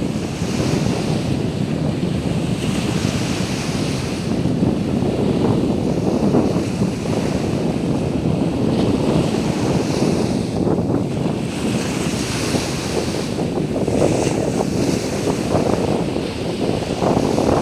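Sea waves washing onto the beach, their hiss swelling and fading every few seconds, with heavy wind buffeting the microphone.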